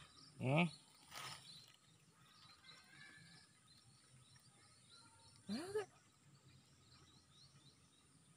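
Quiet outdoor background with faint chirping, broken twice by a short call that rises in pitch: once about half a second in and again about five and a half seconds in.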